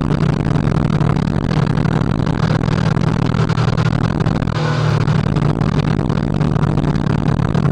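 Sport motorcycle engine running steadily at cruising speed, a constant low hum, with wind and road noise rushing over a camera mounted on the bike.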